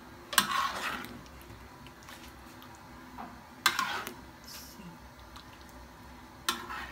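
A spatula stirring a thick duck stew in a wok: the stew squelches, with three short, sharp sounds of the spatula against the pan, just under half a second in, midway and near the end.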